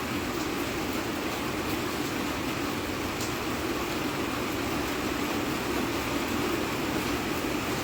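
Steady rain falling: an even hiss with a few faint drop clicks, one a little clearer about three seconds in.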